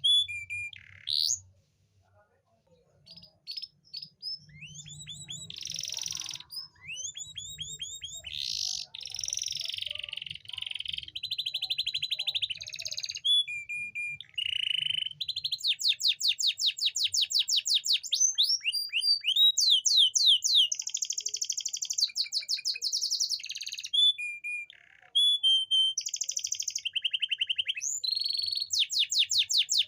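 Domestic canary singing a long song of rapid trills and rolls, with a short pause about two seconds in. It is the male courtship song used to bring hens into breeding condition.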